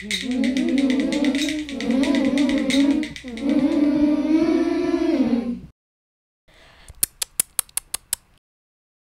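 Wordless singing of a wavering tune for about five and a half seconds. After a short gap there is a quick run of about eight sharp ticks.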